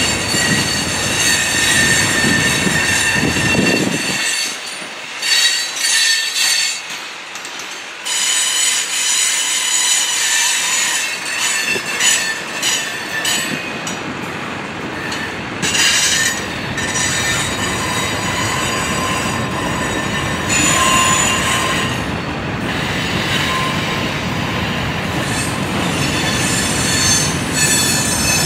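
Freight train cars rolling past on steel wheels, with a constant rolling clatter and steady high-pitched wheel squeal in several tones. The low rumble fades for a few seconds about four seconds in, then returns.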